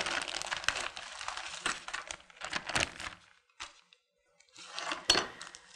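Plastic zip-lock bag crinkling as it is opened and emptied, with small tools and packets clicking onto a wooden tabletop. A brief pause, then more crinkling and a sharp knock near the end.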